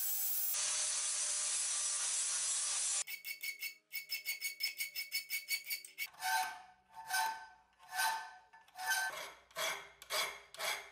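Angle grinder grinding the steel hatchet head for the first three seconds, then a hand file rasping across the steel: quick short strokes at first, then slower strokes about one a second, each with a faint metallic ring.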